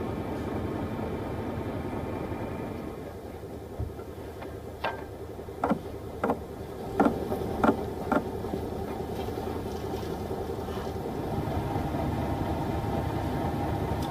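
Vehicle engine running steadily. Through the middle a run of about seven sharp knocks or clacks stands out.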